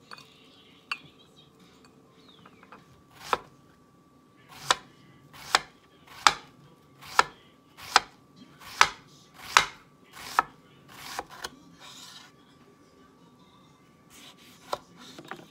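Kitchen knife slicing an onion on a wooden cutting board: about ten sharp chops at an even pace, a little over one a second, then a few lighter cuts near the end.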